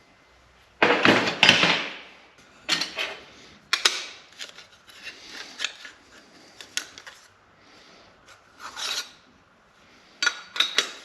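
Sheet-metal pieces being handled at a workbench: a loud scrape of metal on metal about a second in, then scattered clinks, taps and rubbing, with another short scrape near the end.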